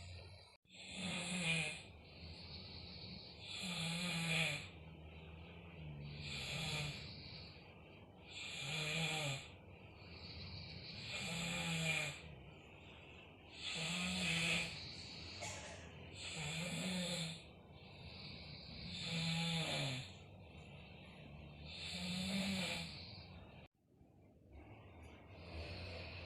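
People asleep snoring, a loud snore about every two and a half seconds.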